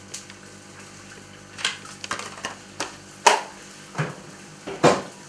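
A metal fork clicking and knocking lightly against a ceramic plate and the potatoes as butter is pushed off onto them, about half a dozen irregular taps, the loudest a little past the middle.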